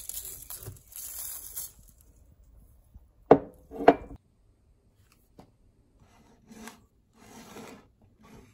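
Coarse salt poured over raw cockles in a metal steamer basket, a hiss of grains for the first second and a half, then two sharp knocks about half a second apart as shell or bowl hits against the shells. The salt is for purging the cockles of grit.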